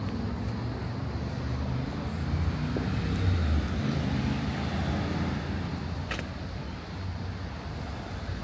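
Street traffic: a motor vehicle's low rumble swells as it passes, loudest about three seconds in, with one sharp click about six seconds in.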